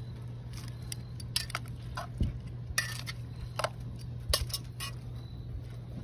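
Long metal tongs clinking and scraping against a cast-iron Dutch oven as sausage and potato chunks are stirred, in about ten irregular clinks.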